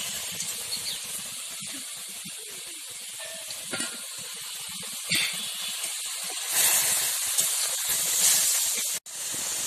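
Spicy fish gravy hissing and sizzling as it boils down in a karahi over a wood fire, with fried puti fish just added. The hiss grows louder about two-thirds of the way through and cuts out for an instant near the end.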